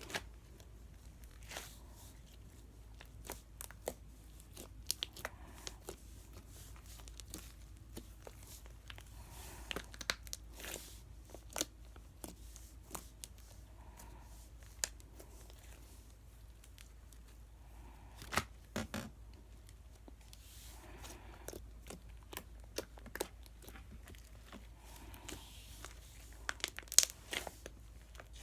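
Slime being handled by hand: irregular crackling, tearing and popping sounds as it is stretched and pressed, with a few louder pops about two-thirds of the way through and near the end.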